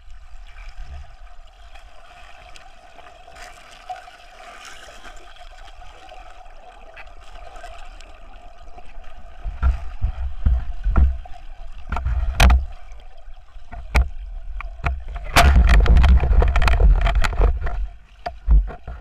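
Muffled underwater sound picked up through a camera held below the surface of a river: a steady hum with faint water noise, then knocks and clicks from about halfway, and a loud, dense rushing noise for a couple of seconds near the end.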